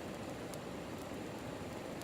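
Steady rushing of a river flowing nearby, with a faint click about half a second in.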